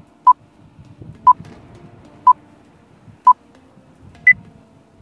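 Quiz countdown timer beeping once a second: four short, identical beeps, then a single higher beep as the count reaches zero.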